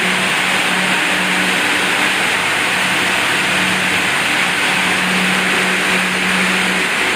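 A machine running steadily: a continuous motor hum under a strong, even hiss, with no change in speed.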